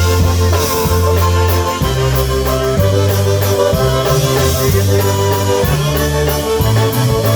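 Live polka band playing an instrumental passage, with a moving bass line under sustained melody notes and a steady beat on the cymbals.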